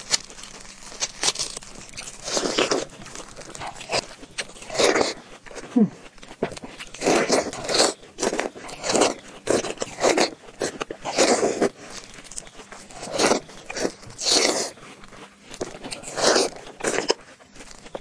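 Biting into and chewing the flesh of a half watermelon, a crunching bite coming about once a second.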